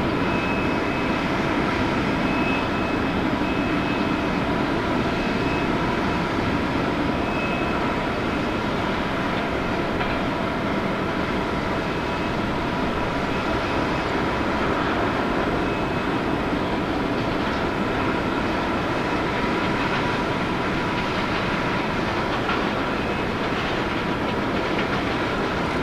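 Airliner jet engines running steadily: an even rumble with several steady whining tones over it, holding level with no rise or fall.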